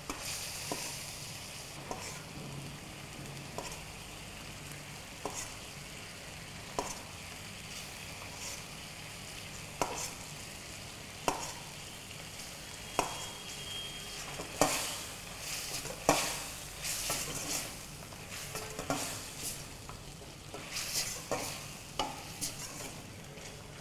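Metal spatula stirring and scraping chicken lollipops in a thick chilli masala in a wok, over a steady sizzle. Single scrapes come about every one and a half seconds at first. Quicker runs of scraping and tossing follow from about halfway and again near the end.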